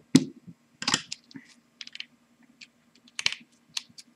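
Irregular small clicks and taps of a screwdriver being picked up and its tip prying at the plastic gear housing of a slow juicer's motor, the loudest near the start and about a second in, over a faint steady low hum.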